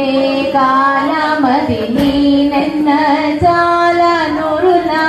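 A high voice singing a Carnatic-style devotional song, with long held notes and ornamental glides between them.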